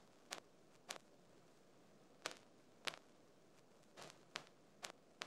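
Near silence: a faint hiss with scattered soft clicks at uneven intervals.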